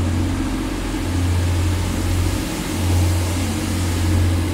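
A pair of Class 185 diesel multiple units pulling away, their underfloor Cummins diesel engines working under load. The engines give a loud, deep, steady note that dips briefly about halfway.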